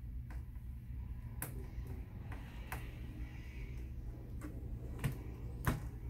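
Light metallic clicks of a precision screwdriver and small screws working on a computer's metal hard drive bracket and chassis as the drive's mounting screws are taken out. About six sharp clicks come at uneven intervals over a steady low hum.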